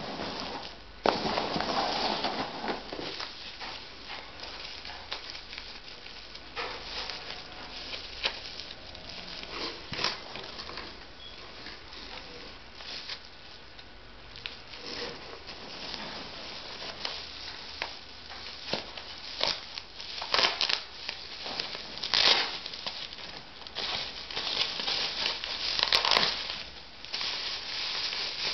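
Packaging crinkling and rustling with scattered sharp clicks and light knocks as a carburetor conversion kit is unpacked and its parts handled. The busiest rustling comes in the first few seconds and again toward the end.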